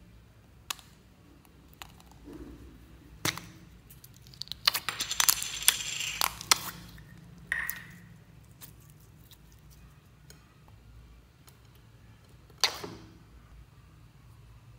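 Plastic slime containers clicking and clattering against each other and the glass bowl as they are picked up and handled, with a busy stretch of rattling between about four and seven seconds in and a single sharp knock near the end.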